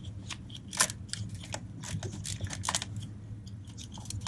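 Hand ratchet with a deep socket on an extension clicking in short, uneven strokes on a starter mounting bolt, with light metal handling knocks; the loudest click comes about a second in.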